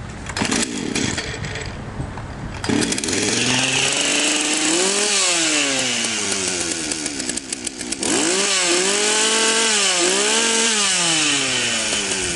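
Partner P352 two-stroke chainsaw pull-started on its starter cord. It catches about two and a half seconds in and is revved up and down several times before easing back. It runs properly after the ignition module was replaced to cure a no-spark, no-start fault.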